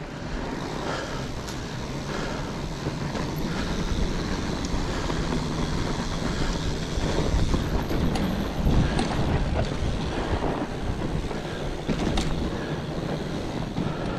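Fat bike riding along a forest trail: a steady rumbling ride noise with wind buffeting the microphone, and a few sharp clicks or knocks from the bike over bumps.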